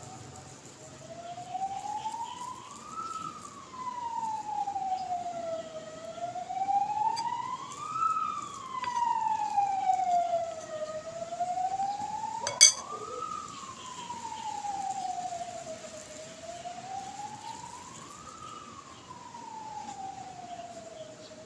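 A siren wailing slowly up and down, one rise and fall about every five seconds. A single sharp clink about twelve and a half seconds in is the loudest moment.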